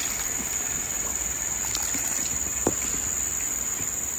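Steady high-pitched drone of forest insects, one unbroken tone, with a faint trickle of broth poured from a ladle back into a wok and a single light click about two and a half seconds in.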